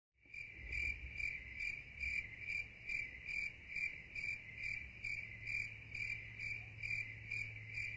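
Crickets chirping in an even rhythm, about two to three chirps a second, over a steady low hum.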